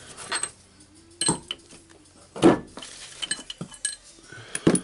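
Greasy metal parts of a Hilti TE56 hammer drill's hammer mechanism clinking and knocking together as they are handled on the workbench: a scattering of short sharp clinks, the loudest about halfway through and a quick double clink near the end.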